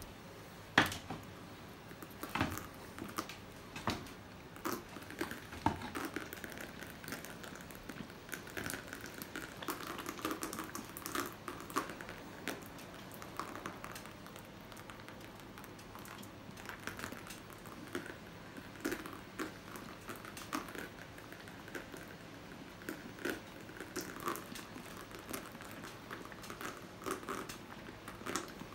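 Irregular small taps and splats of paint being dripped and flicked onto a canvas laid on the floor, a few landing louder than the rest.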